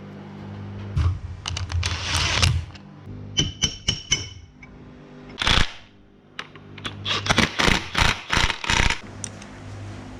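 Metal limited-slip differential parts being handled: irregular clicks and clinks of steel clutch plates and springs, with a brief ringing metallic tone a few seconds in and a quick run of clicks near the end, over a low steady hum.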